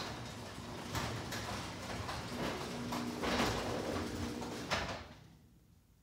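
Chamberlain LiftMaster MyQ garage door opener raising a sectional garage door: the opener and door run steadily with scattered clicks and rattles, ending in a sharp knock just before five seconds in as the door reaches the top and the motor stops.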